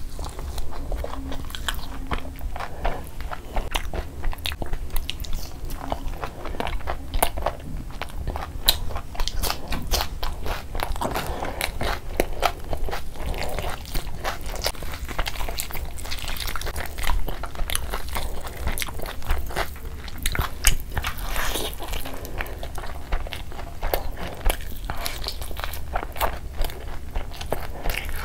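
Close-miked eating: biting and chewing curried chicken and mutton leg meat with rice, with many small irregular clicks and smacks throughout.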